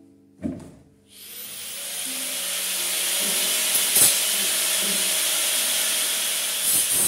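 Angle grinder spinning up about a second in, then cutting steadily through a metal frame bar with a loud hissing grind and a steady whine. A single knock comes just before it starts.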